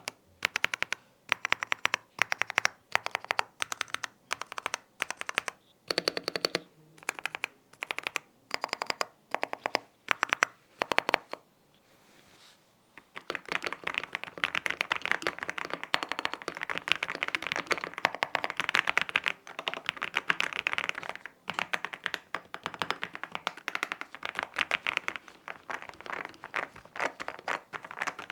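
Keystrokes on an MCHOSE K99 gasket-mounted mechanical keyboard. First come short runs of quick clicks separated by brief pauses. About halfway through there is a moment of quiet, then fast, continuous typing.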